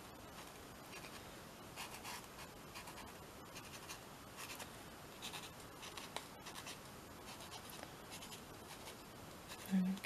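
Posca paint marker drawing short strokes on a textured art-journal page: faint, irregular scratching of the felt tip on paper.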